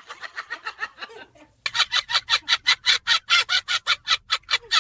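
Cackling laughter: a fast run of short "ha-ha" pulses, about six a second. It breaks off briefly about a second and a half in, then comes back louder and keeps going.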